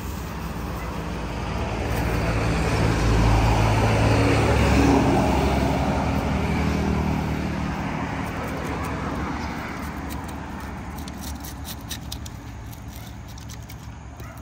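A motor vehicle passes on the road, its engine sound swelling to a peak about four seconds in and fading away by about ten seconds. Faint quick clicks follow near the end.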